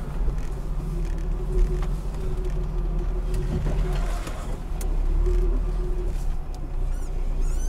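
Lada Niva driving off-road on a bumpy sandy track: its engine running with a steady low drone, with a few sharp knocks scattered through.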